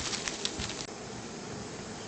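Pestle grinding and tapping sambal in a mortar: a quick run of light knocks that stops under a second in.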